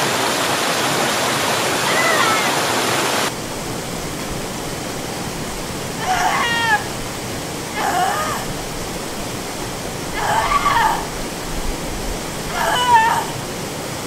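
Steady rush of a waterfall, which drops abruptly in loudness about three seconds in. Over the water, a short high cry that bends in pitch sounds every two seconds or so, several times.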